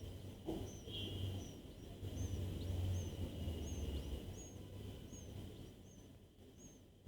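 A bird chirping in an even series of short, high chirps, a bit under two a second, over a low steady background hum.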